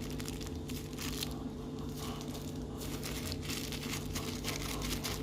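Irregular crinkling and rustling as seasonings are handled and sprinkled over raw chicken gizzards, with a steady low hum underneath.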